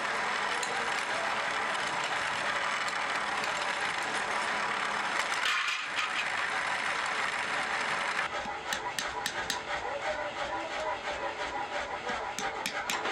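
Bench drill press running and boring through a wooden knife-handle scale, a steady whirring hiss with a brief dip a little before the middle. After about eight seconds it gives way to quick, repeated hammer taps on metal pins set in the handle on a steel block.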